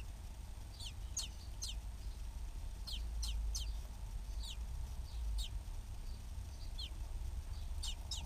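Common blackbird nestling begging: thin, high squeaks that fall in pitch, coming in quick clusters of two or three every second or two, with a low rumble underneath.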